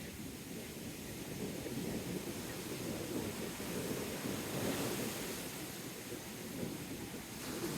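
Sea surf washing in under strong wind, with wind buffeting the microphone; the rush swells about two-thirds of the way through and again near the end.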